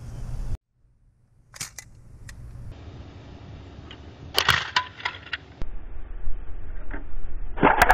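6mm Pro Shop airsoft hand grenade going off in a few cut-together clips: short sharp cracks and clatter, the strongest about four and a half seconds in and a rapid string of cracks near the end.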